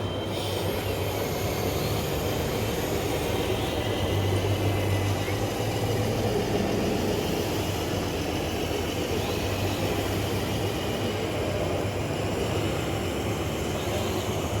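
Radio-controlled scale construction machines running: a steady electric-motor whine with a low hum that swells a few seconds in.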